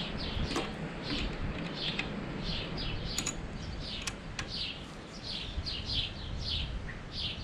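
A bird calling over and over with short, falling chirps, about two a second, with a few sharp clicks in between.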